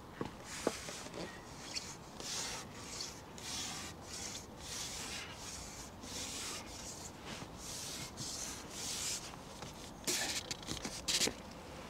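Repeated rubbing and scraping, a hissy stroke about every half second, with a louder flurry near the end.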